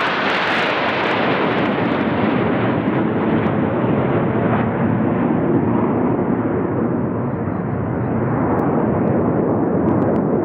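Jet engine noise from a formation of jets flying overhead: a steady rushing noise with no clear pitch, slightly brighter in the first second.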